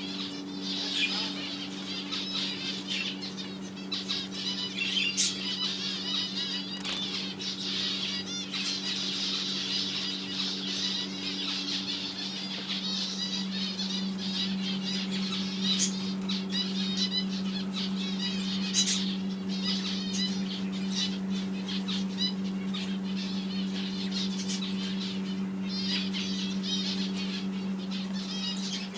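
Many birds chirping and calling together, with wings flapping and scattered clicks, over a steady low hum.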